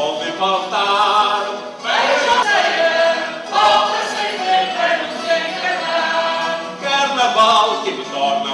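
A choir of voices singing a Terceira carnival bailinho song in chorus, a new phrase starting about two seconds in.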